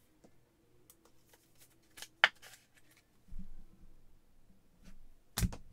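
Trading card being handled and slipped into a rigid clear plastic top loader: a sharp plastic click about two seconds in, soft rustling, and another click near the end.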